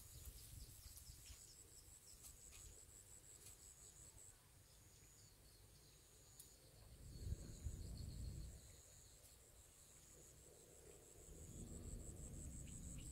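Crickets trilling faintly in a high, rapid pulse, with short breaks. A brief low rumble comes about seven seconds in, and low noise rises again near the end.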